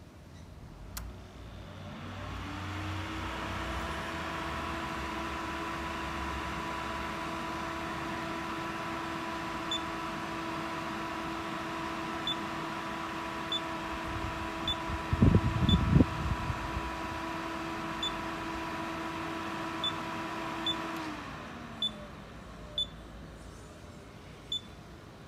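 Shindaiwa STW201DW inverter DC TIG welder running: its steady hum rises in pitch as it spins up about two seconds in, holds, then winds down near the end. Scattered sharp ticks come throughout, with a cluster of loud low thumps about halfway through.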